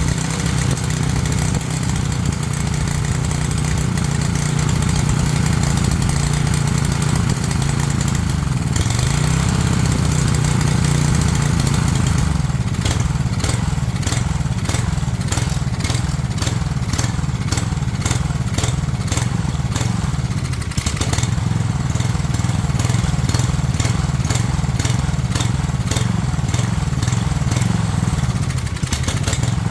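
Small single-cylinder engine of a Craftsman pressure washer running; its pitch dips and comes back up about nine seconds in, and from about twelve seconds a rapid clicking rides over the engine. It runs, but the owner suspects missing springs are part of a remaining problem.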